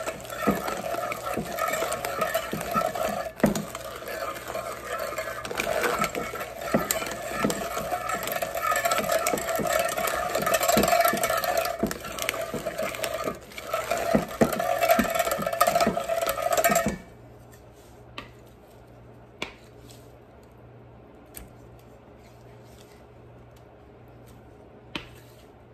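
Hand-cranked stainless steel food mill being turned, its blade scraping over the perforated plate as it presses thawed blackberries: a steady metallic scraping with many small clicks. It stops suddenly about two-thirds of the way in, leaving only a few soft knocks.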